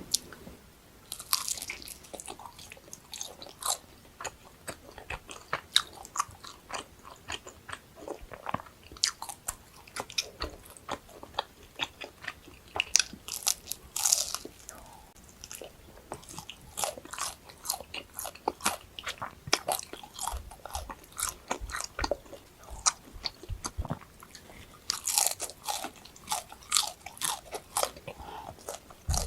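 Close-miked eating of crunchy food: many crisp bites and crunches with chewing between them, coming in flurries.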